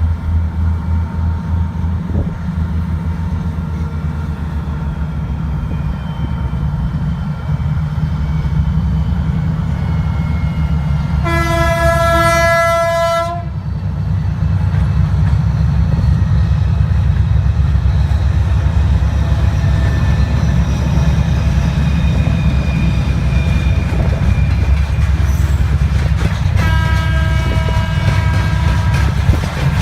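A 2TE10U diesel-electric locomotive's 10D100 two-stroke opposed-piston diesel engines run with a heavy, steady rumble, growing louder about halfway through. The locomotive's horn sounds one long blast about 11 seconds in, and a second, fainter horn sounds near the end.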